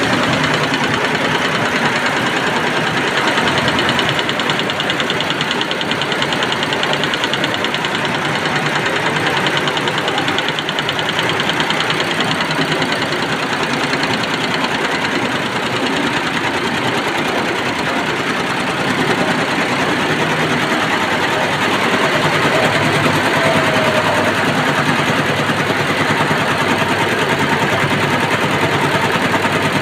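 12-head computerized embroidery machine running, its needles stitching in a dense, rapid, steady mechanical clatter.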